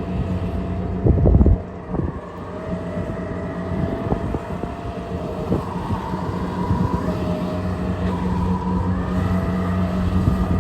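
Kubota DC688Q combine harvester's diesel engine running steadily under load while cutting rice, with a whine above it that wavers in pitch. One loud knock comes about a second in.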